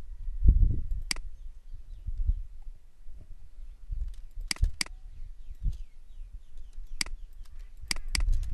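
Computer mouse clicking: a single click about a second in, a quick double click about halfway through, then a run of clicks near the end, over a low background rumble.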